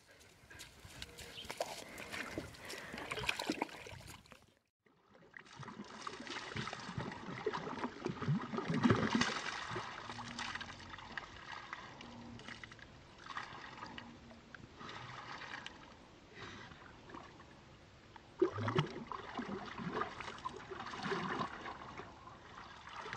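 Water splashing and sloshing in a plastic stock tank as a dog moves around in it, in uneven surges.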